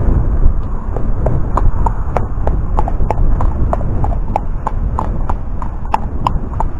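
A Thoroughbred horse's hooves clip-clopping on a hard dirt track, about three or four footfalls a second, over low wind rumble on the microphone.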